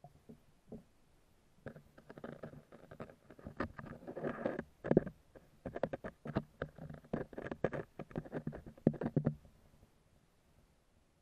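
Underwater sound in a creek: a dense, irregular run of clicks and knocks over a low rumble. It starts about two seconds in, is busiest around the middle and dies away after about nine seconds.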